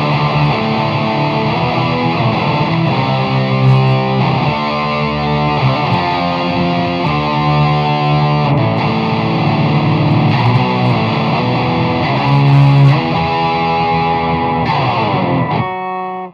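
Epiphone Les Paul 100 electric guitar played through an amplifier with distortion, strumming a run of chords that change about every second. A final chord rings briefly and is cut off near the end.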